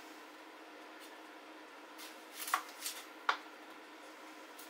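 Dry, papery onion skin crackling as it is peeled off with a kitchen knife: a few short rustles about two seconds in, then a sharper crackle.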